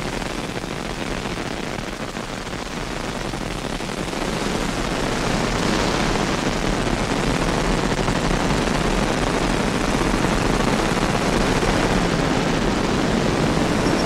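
Electronic feedback noise: a dense, steady hiss-like wash with a low hum underneath, slowly growing louder.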